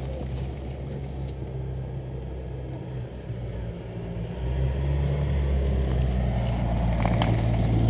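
A motor vehicle's engine running with a steady low hum, growing louder about halfway through. A single sharp click sounds near the end.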